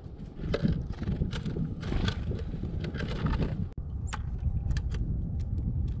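Clicks and scrapes of a Eurasian tree sparrow pecking at seeds on the plywood floor of a bird feeder, over a steady low rumble. A flutter of wings comes right at the end as a great tit flies in.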